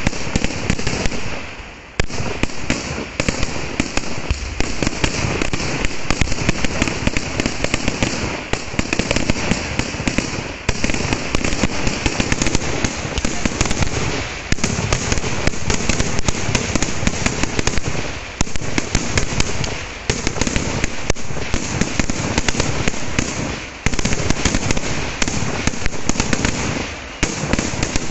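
Kerala temple fireworks (vedikkettu) going off in a rapid, dense string of loud firecracker bangs, with a few brief lulls of a second or less.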